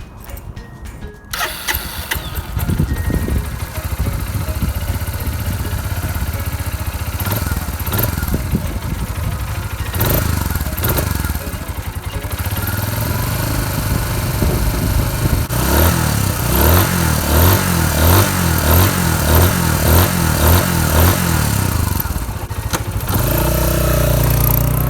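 Suzuki ST250E's single-cylinder four-stroke engine starting and running after the oil change, with a run of quick revs about twice a second in the second half before settling to a steady run.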